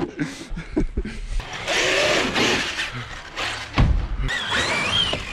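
Electric RC monster truck (Traxxas X-Maxx) accelerating: a whining motor over hissing tyres on wet tarmac. A single loud thump about four seconds in, as the truck hits or lands off the ramp, then the motor whine rises and falls.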